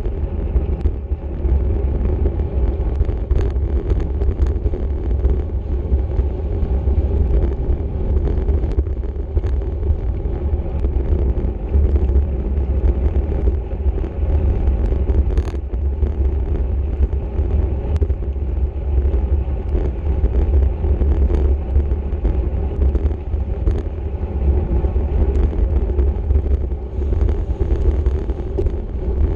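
Steady, loud rumble of wind on the microphone of a camera riding on a racing bicycle at speed, mixed with road and tyre noise and scattered sharp clicks.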